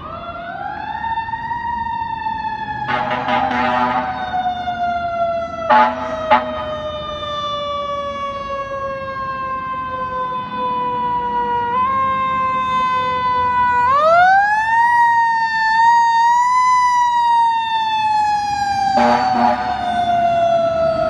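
Fire engine siren winding up, then wailing slowly down in pitch, and winding up again about two-thirds of the way through before falling again. Horn blasts break in: a longer one a few seconds in, two short, loud ones soon after, and another near the end.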